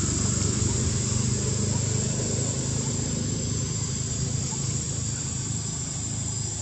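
Steady high-pitched insect drone over a low, steady rumble.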